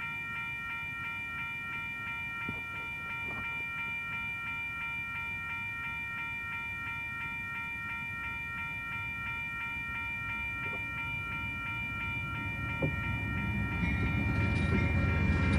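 Amtrak passenger train led by GE P42DC and P40DC diesel locomotives approaching, its low rumble growing and getting loud near the end as the locomotives pass close by. A steady high ringing tone runs underneath throughout.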